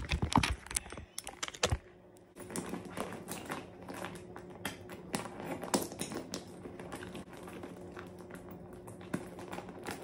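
Light, irregular clicks and rattles of small items being handled in a small backpack, over a faint steady hum. A few louder knocks near the start, from the camera being handled.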